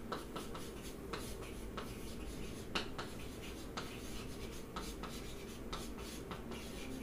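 Chalk writing on a chalkboard: a run of short, irregular taps and scratches as a word is written out, with one sharper tap about three seconds in.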